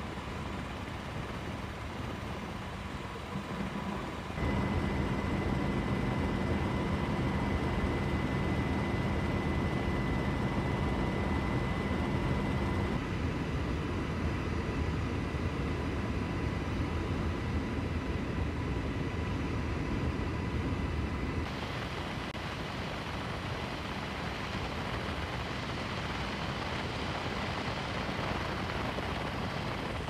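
Steady aircraft engine noise from on board, with a constant whine over a low hum. It changes abruptly about four, thirteen and twenty-one seconds in, where the footage cuts between shots.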